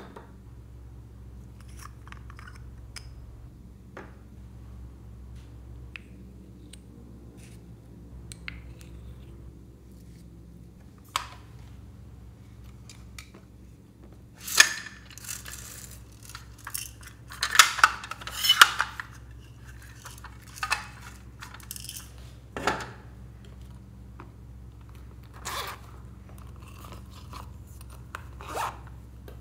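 Small plastic sprinkles and confetti poured from a plastic cup into a glass dish, rattling and clattering against the glass in a loud stretch about halfway through. Around it, scattered clicks and taps of plastic makeup caps and tubes being opened and handled.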